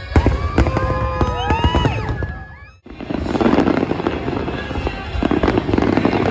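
Fireworks display: sharp bursts with whistles that glide up and down in pitch. The sound fades out about two and a half seconds in, then returns as dense crackling and popping from many bursts at once.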